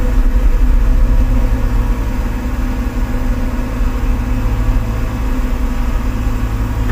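A 110-class excavator's diesel engine running steadily, heard from inside the cab, while the machine's upper structure swings on its hydraulics.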